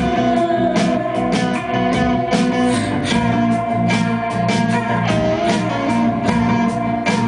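Live rock band playing: electric guitars and keyboards over a drum kit beating steadily, with held notes ringing under the drums.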